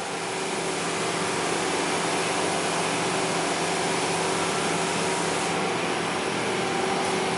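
Steady whir of running machinery with a constant low hum, unchanging throughout.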